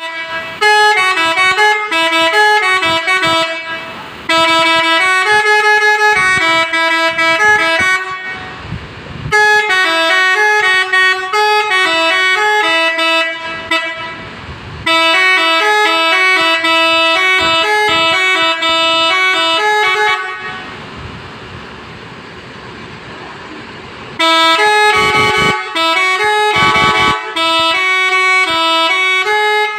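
Telolet horn of a PO Natama Trans bus playing quick tune-like runs of stepping notes. It sounds in several long bursts with short breaks between them and a longer pause about two-thirds through.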